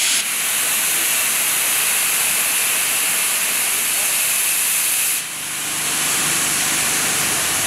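Л-class steam locomotive standing at the platform and venting steam in a loud, steady hiss. The hiss drops off about five seconds in and builds back up over the next second.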